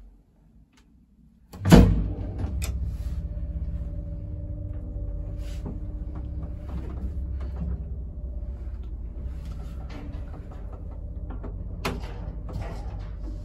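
1938 MOC passenger lift starting off: a loud clunk a couple of seconds in, then the steady low hum and rumble of the lift running in its shaft, with a short click near the end.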